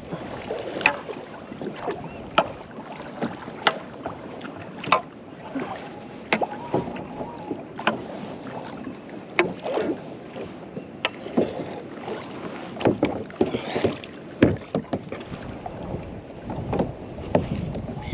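Kayak on wind-chopped water: repeated sharp knocks and water slaps against the hull, irregularly about once a second, over wind on the microphone.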